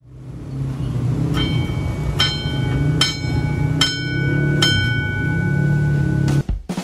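Railway level-crossing warning bell, a dome gong under a rain hood, struck five times about 0.8 seconds apart. Each strike rings on in clear high tones over a low steady rumble, and the ringing cuts off just before the end.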